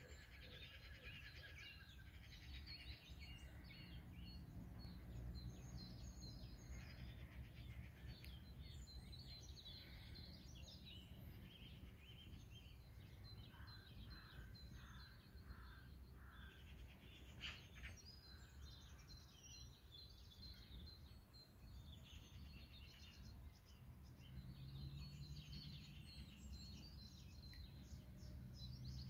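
Faint birdsong: several small birds chirping and calling in short, scattered notes, over a steady low rumble.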